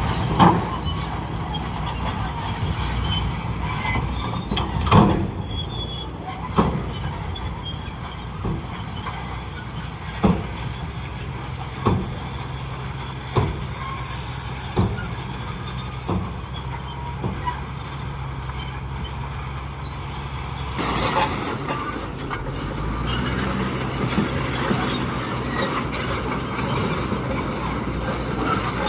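Bulldozer's diesel engine running steadily, with sharp metallic clanks from the tracks about every one and a half seconds. The sound shifts abruptly about twenty seconds in.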